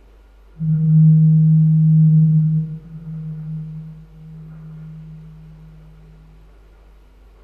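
A low humming tone added as a sound effect comes in suddenly about half a second in, holds loud for about two seconds, then drops and fades away over the next few seconds.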